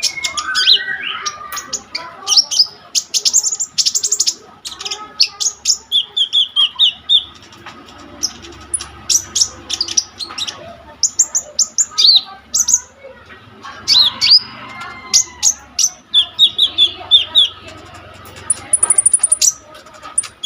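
A konin (kolibri ninja) singing continuously: a rapid string of sharp, high chirps and whistles broken by short fast trills, with a few very high notes near the end. This is the full, persistent song prized as a master recording for training songbirds.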